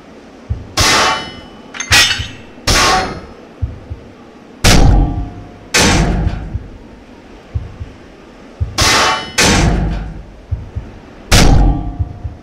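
Heavy metallic clangs, about eight blows at uneven intervals, each ringing out and with dull thuds between them: someone battering at a door to break in.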